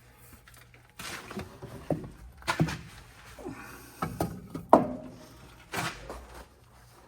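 Irregular knocks, rustles and clatter of someone handling tools and parts by hand, about five separate bumps.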